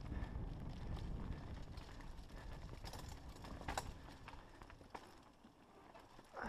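Mountain bike descending a dirt singletrack at speed: the tyres run over dirt and stones while the bike rattles with scattered clicks and knocks, under a low wind rumble on the microphone. The rumble is heaviest for the first few seconds and eases off after about five seconds.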